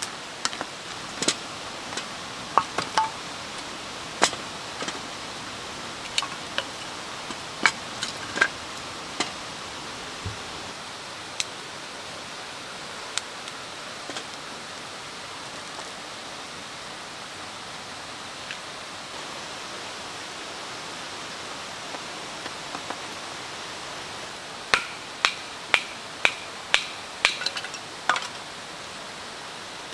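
Wood campfire and split kindling: scattered sharp crackles and clicks over a steady hiss, then a quick run of about eight sharp knocks of wood near the end.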